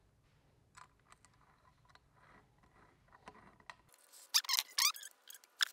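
M6 socket head bolt being turned with a T-handle hex key through a carburettor adapter into an intake manifold. A few faint clicks, then from about four seconds in a quick run of short, loud squeaks as the bolt is tightened.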